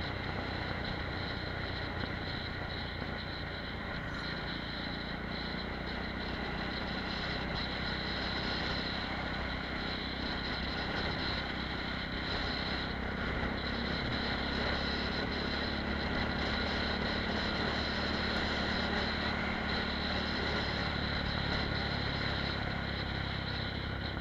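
Apollo RX250 supermoto's engine running steadily at road cruising speed, heard from a helmet-mounted camera, with a constant rush of riding noise.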